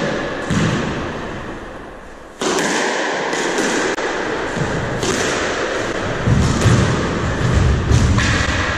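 Squash rally: the ball cracks off rackets and the court walls about once a second, each hit ringing briefly in the enclosed court. Heavier low thumps come about six seconds in.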